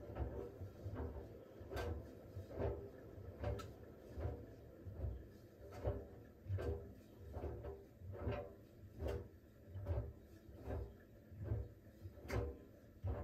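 Siemens WG56 iQ700 washing machine drum turning during its smartFinish steam phase, the damp laundry dropping inside it with a soft thud and a sharp click about once every 0.8 seconds.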